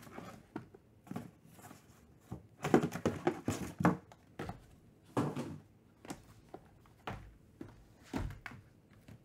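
Shrink-wrapped trading-card hobby boxes being handled, slid and set down against each other and the table: a run of light cardboard thunks and scuffs, densest a few seconds in, then single knocks as the boxes are restacked.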